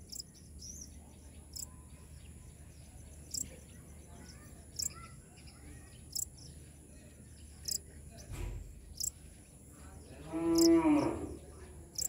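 One long pitched animal call, about a second long, near the end. Short high chirps repeat about every second and a half throughout.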